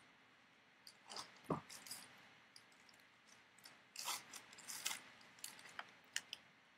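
Foil wrapper of a 2017 Elite football card pack crinkling as it is handled and torn open by hand, heard as a scattered series of short crinkles and clicks.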